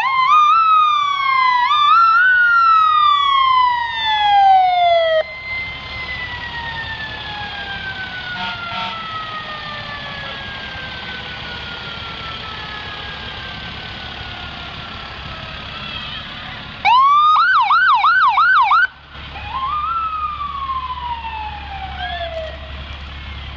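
Fire engine sirens. An electronic wail starts loudly and sweeps up and down for about five seconds, over a mechanical siren that winds up and then slowly coasts down in pitch. Later, a two-second burst of fast yelp sounds, then one more wail rises and falls away.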